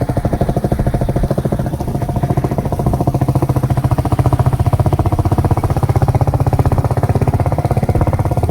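Royal Enfield Bullet's single-cylinder four-stroke engine running steadily, its exhaust beating in an even, rapid rhythm.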